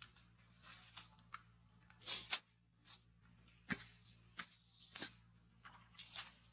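Dry fallen leaves rustling and crackling in short, irregular bursts with a few sharp clicks as monkeys shift and move about on leaf-littered ground, loudest about two seconds in.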